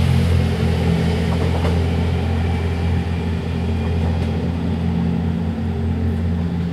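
Kiha 87 series diesel-electric train's generator engines giving a steady low drone of several level tones as it pulls away, growing slightly fainter.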